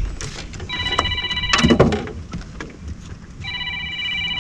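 An electronic ringing tone, a chord of several steady pitches sounding in bursts of about a second, repeating about every three seconds. A brief clatter of knocks falls between the first and second ring.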